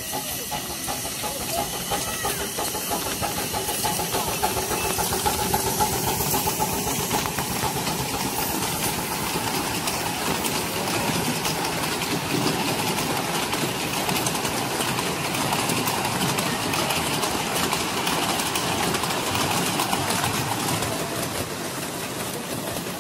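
A 7¼-inch gauge miniature steam locomotive hauling a passenger train past. Its exhaust beats and hissing steam run steadily, with a faint held tone in the first few seconds.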